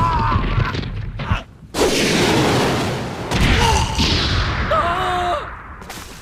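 Anime fight-scene sound effects: dense crashing impact noise and a man's strained cries and yells. The sound drops out briefly about a second and a half in, then comes back suddenly and loudly.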